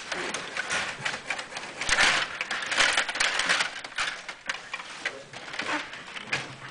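Stiga Play Off table hockey game in play: rods slid and spun, with plastic players, puck and boards clattering in a rapid, irregular run of clicks and rattles, busiest about two to three and a half seconds in.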